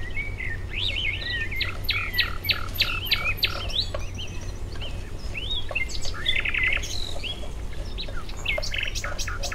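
Birds chirping in several bouts of quick repeated notes, over a steady low hum.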